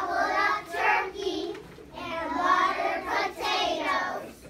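A group of young children singing together, phrase by phrase, with a brief break about two seconds in.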